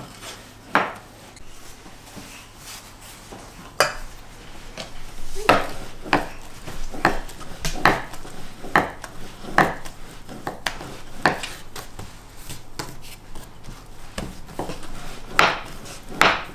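Metal spoon clinking against a stainless steel mixing bowl while onion-and-pork bun filling is scooped, a run of short sharp knocks about once a second.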